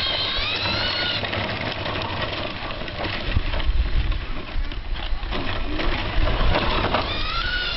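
Electric motor and gear drive of a radio-controlled Tamiya Dark Impact buggy whining, the pitch rising and falling as it speeds up and slows. Low rumbling knocks join in from about three seconds in.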